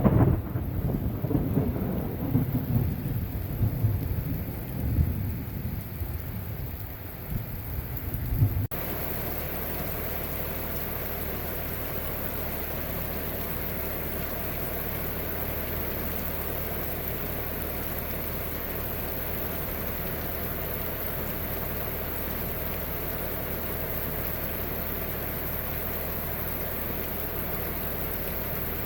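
Thunder rolling and rumbling over heavy rain, dying away unevenly over the first eight or nine seconds, then cutting off suddenly. After that, a steady torrential downpour hisses evenly on its own.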